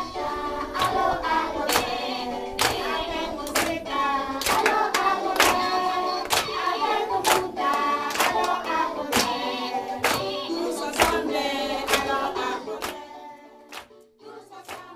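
A class of children singing a song together with their teacher, clapping their hands in time about once a second; the singing and clapping fade out near the end.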